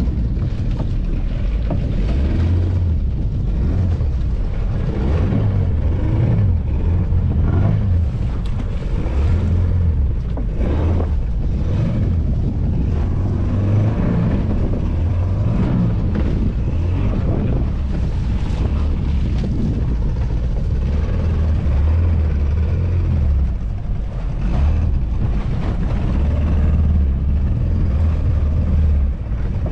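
Small fishing boat's outboard motor running at low speed, with wind buffeting the microphone and water splashing against the hull, as a net is paid out over the side. A heavy, uneven low rumble runs throughout.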